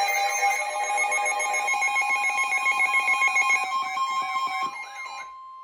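Emergency alert tones: a loud electronic alarm of stacked steady tones with a warble repeating about twice a second, and a single steady alert tone joining about two seconds in. The alarm cuts off abruptly about five seconds in, leaving the steady tone, which signals that a spoken warning is about to follow.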